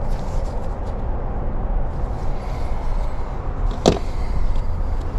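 Steady low rumble with a single sharp click about four seconds in.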